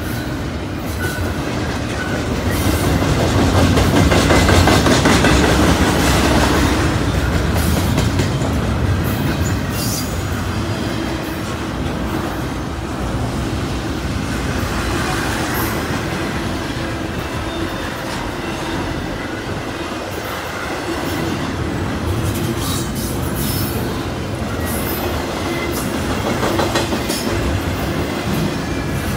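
Double-stack intermodal freight train passing close by: a steady rumble of the loaded well cars with a rhythmic clacking of wheels over rail joints, loudest a few seconds in, and now and then a faint squeal of wheels.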